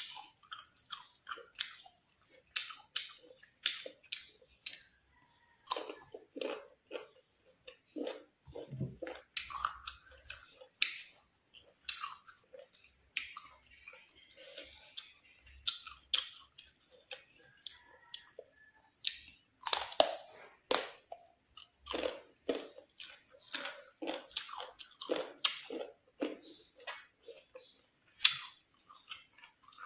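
Close-up chewing and crunching of firm green mango: irregular wet, crisp crunches and mouth clicks, with a few louder bites about two-thirds of the way through.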